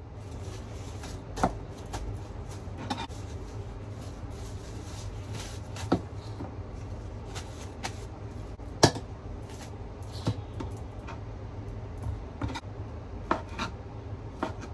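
Food-prep handling sounds: scattered sharp knocks and clicks of a knife and ingredients set down on a wooden counter and a plastic cutting board, over a steady low hum. Near the end a kitchen knife cuts through a vegan crab stick on the cutting board.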